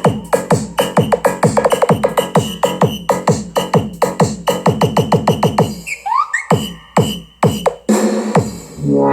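Electronic remix music played through a miniature speaker box with a 2-inch driver. Fast drum-machine hits, each dropping in pitch, come about four a second. About two-thirds of the way through there is a short break with rising sweeps, and near the end a held synth chord comes in.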